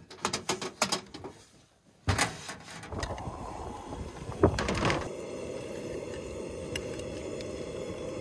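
Propane camp stove being lit: a few clicks at the knob, then the burner catches about two seconds in and runs with a steady hiss. A couple of clinks from a utensil against the glass dish and the steel pan come near the middle.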